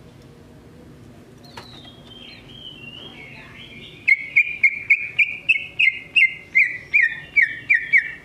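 Cucak ijo (green leafbird) singing: a whistled phrase that glides down in pitch, then a loud run of sharp, repeated notes, about three a second, through the second half.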